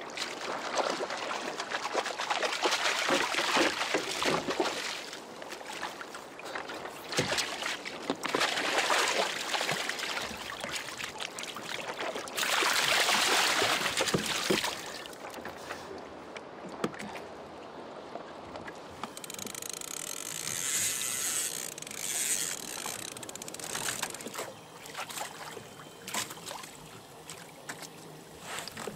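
Sea water rushing and splashing against the hull of a sailing kayak under way, with louder splashing about halfway through.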